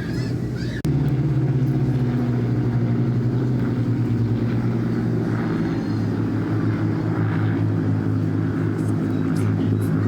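Yamaha XV650 air-cooled V-twin engine running steadily, with a brief break just under a second in, after which it comes back louder.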